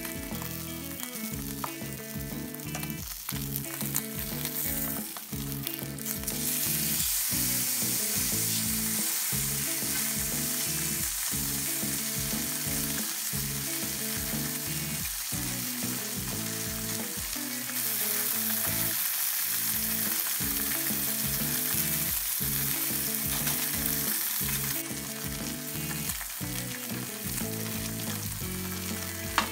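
Salmon skin sizzling as it fries in oil in a nonstick frying pan, crisping and browning. The sizzle grows louder about six seconds in and eases slightly near the end.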